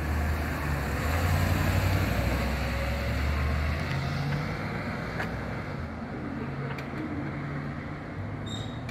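A Chevrolet Tahoe fire command SUV's engine running as it pulls out and drives past, loudest in the first four seconds and then fading as it moves away down the street.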